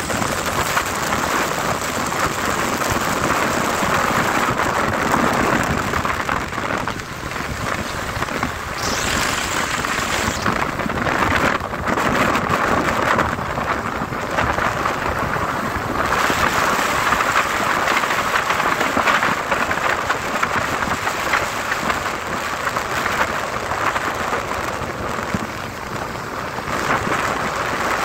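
Steady rushing noise of a motorbike riding at speed through rain: rain and wind on the handlebar microphone, with tyres on the wet road.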